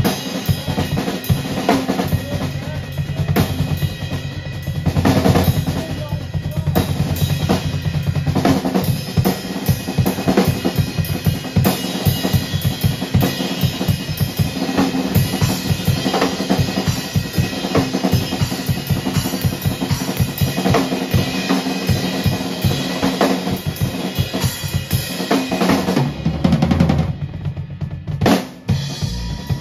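Rock drum kit played fast and loud, with rapid snare and bass-drum strokes, drum rolls and cymbals, over low sustained notes. The playing briefly drops out near the end, then the hits resume.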